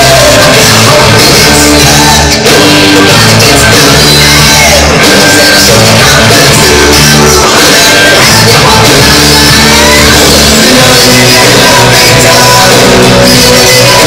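Loud rock music with a singing voice.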